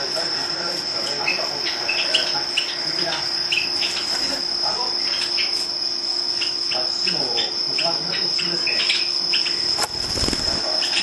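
A cricket's steady high-pitched trill, with short sharp chirps scattered over it and a brief low rumble near the end.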